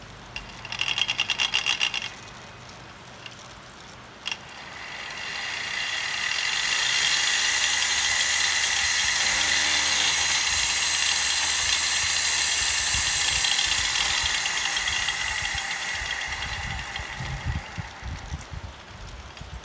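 A small motor running: a quick rattle about a second in, then a whine that builds up over a couple of seconds, holds steady for about seven seconds and winds down.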